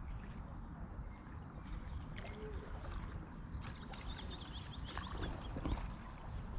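A bird calling: a quick, even run of high chirps, about eight a second, then a more varied burst of chirps about three and a half seconds in, over a low steady rush of noise.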